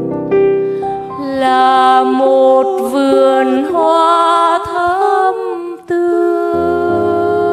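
Two women singing a slow Catholic Lenten hymn together over piano accompaniment. The voices stop about six seconds in, and the piano carries on with sustained chords.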